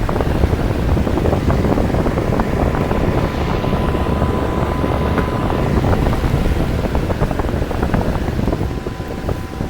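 Outdoor heat pump unit running in heat mode in freezing weather, its fan and compressor making a steady rushing drone with a thin whine, heavily buffeted by wind on the microphone.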